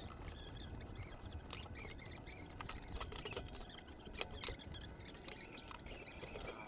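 Faint handling clicks, taps and scrapes as a small 12-volt DC fan is taken apart with a screwdriver, its wire guard and plastic blade being worked loose and lifted off.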